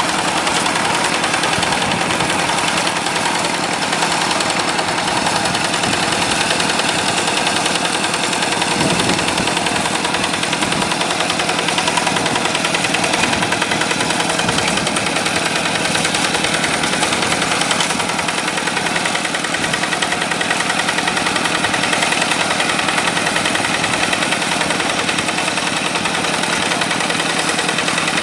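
Yanmar diesel engine of a rice-field tractor running steadily at work, with a rapid, even pulse.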